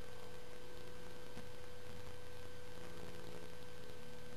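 Steady faint hiss with a constant low hum and a thin steady tone: room tone with electrical hum, and no distinct event.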